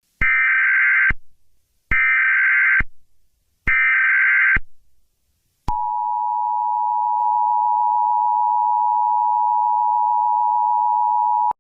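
Emergency Alert System header: three short bursts of buzzing digital data tones about a second apart, then the EAS attention signal, a steady harsh two-pitch tone (853 and 960 Hz) held for about six seconds and cut off sharply. Together they mark the start of an emergency alert broadcast.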